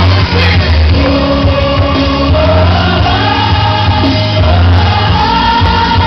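Loud gospel music: singing voices over a heavy bass line with held, changing notes.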